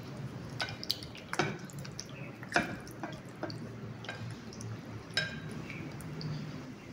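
Irregular drips, plops and sharp clinks as jelly cubes and liquid drop into a glass serving bowl of custard and ice cubes, about eight separate hits, the loudest about two and a half seconds in.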